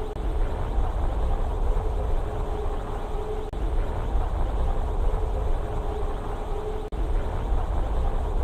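Cartoon sound effect: a steady low rumbling drone with a constant hum over it, dropping out for an instant twice, about three and a half and seven seconds in.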